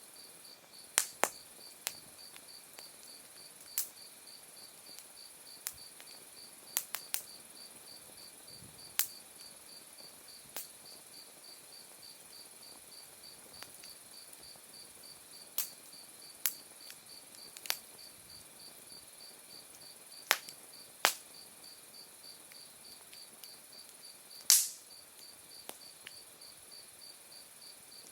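Autumn crickets chirping steadily in an even pulsing trill, while firewood in an open wood fire pops and snaps in sharp, irregular cracks. One loud pop comes near the end.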